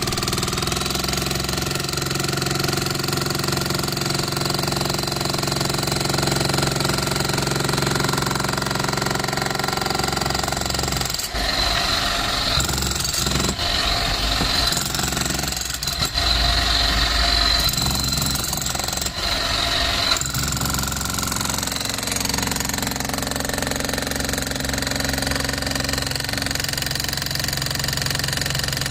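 Bosch GSH 11 E corded electric demolition hammer running continuously, its chisel pounding into a concrete slab with a rapid, steady hammering. For several seconds in the middle the sound turns rougher and brighter, then settles back to the even beat.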